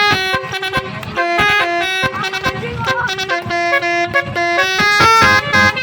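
Basuri musical air horn on a bus playing a telolet tune: a quick run of horn notes, each held briefly at a steady pitch before stepping to the next, with short gaps between phrases. It is louder again near the end.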